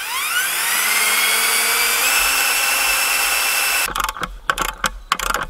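Cordless drill spinning up with a rising whine and running steadily as it bores into the wooden post through the metal ground sleeve. It stops abruptly about four seconds in, and irregular metallic clicks and knocks follow as a bolt is fitted through the sleeve by hand.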